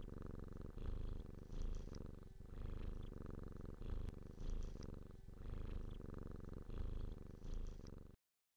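Domestic cat purring close up, swelling and fading in a steady cycle a little more than once a second; it cuts off suddenly near the end.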